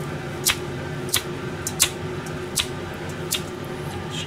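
A stainless-steel mesh strainer of freshly rinsed boiled noodles being shaken to drain over a kitchen sink, giving about six sharp, irregular metallic clicks and taps over a low steady hum.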